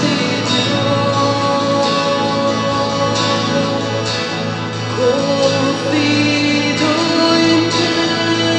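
Hymn sung with instrumental accompaniment, the notes held and flowing on without a break.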